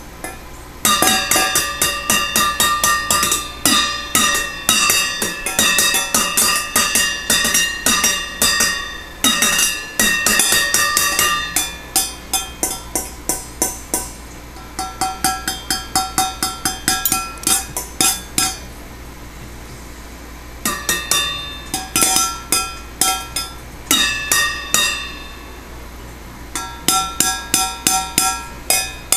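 A baby banging on bowls and a pot, fast runs of ringing strikes at about three or four a second, each hit leaving a pitched ring. Several short lulls break the runs.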